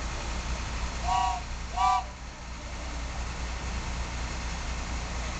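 Truck engine idling steadily, with two short horn toots about one and two seconds in.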